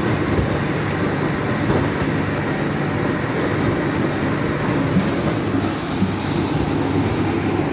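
Automatic sleeve sealer and heat-shrink tunnel running: a steady machine hum with a rattling undertone and a few short clicks.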